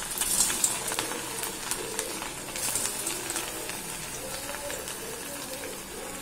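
Cornflour-coated cauliflower pieces dropped into hot oil and deep-frying: a steady sizzle and crackle, louder in the first second as fresh pieces go in.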